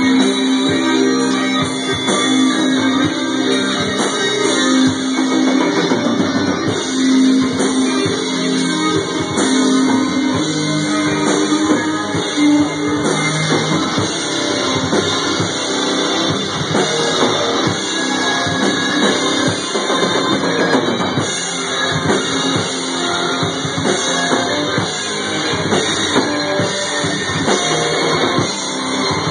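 Live metal band playing: electric guitars over a drum kit, with dense drumming that keeps going without a break.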